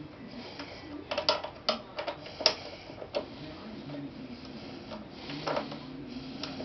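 Sharp metallic clicks and knocks from a mini lathe's three-jaw chuck and chuck key as a metal workpiece is set in and the jaws are tightened. Most of them bunch together from about one to three seconds in, and a duller knock comes about five and a half seconds in.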